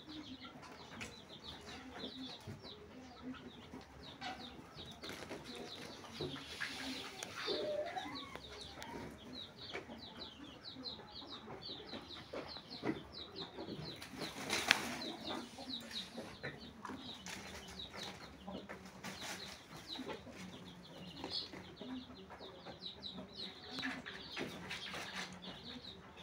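Farmyard background of small birds chirping over and over, with chickens clucking now and then. A single sharp knock stands out about 15 seconds in.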